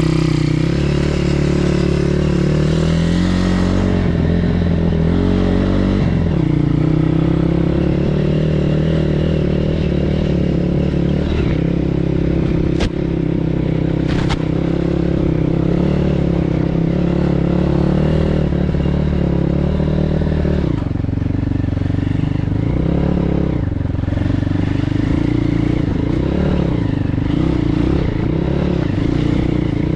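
BSE PH 150 pit bike's 150 cc single-cylinder four-stroke engine running under way off-road, its revs rising and falling with the throttle and gear changes. There are two sharp clicks near the middle.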